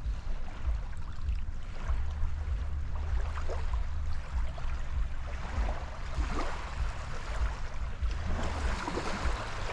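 Small waves lapping and washing in shallow water as the tide floods in, with gusty wind rumbling on the microphone.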